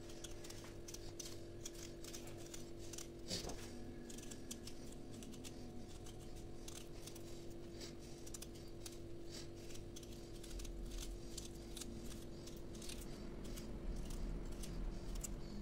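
Small kitchen knife peeling a raw potato by hand: a long run of quick, small cutting clicks as the blade works through the skin, over a faint steady hum.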